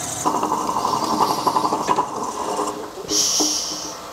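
Wood lathe running with a long drill bit in its chuck, boring through a block of hard, dry maple fed by hand against a crotch center. There is a steady hum with a whine for the first two and a half seconds, then a brief high hiss about three seconds in as the bit cuts and throws out chips.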